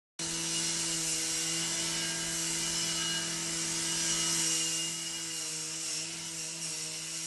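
Angle grinder cutting through a metal surveillance mast: a steady motor whine under a strong hiss from the disc grinding into the metal. It dips slightly in pitch and level a little past halfway.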